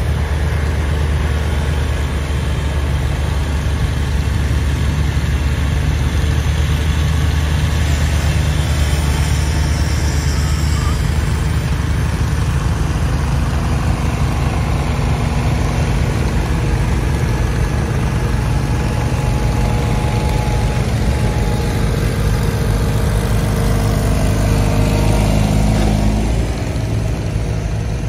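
Garden tractor engine running steadily. About 26 seconds in, its note changes and it drops a little in level.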